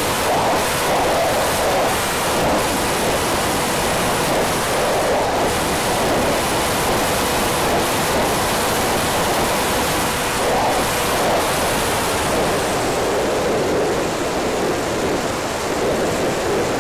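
Steady rushing wind noise picked up by the onboard camera of a Shuriken mini FPV flying wing in fast flight, with a faint steady tone from its electric motor underneath.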